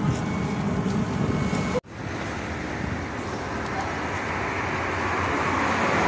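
Steady outdoor rumble of engine and traffic noise with no distinct events. It drops out sharply about two seconds in, then runs on and grows slightly louder.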